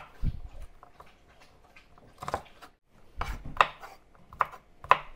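A knife chopping green beans on a wooden cutting board: irregular knocks of the blade striking the board. They are sparse at first and come every half second or so from about two seconds in.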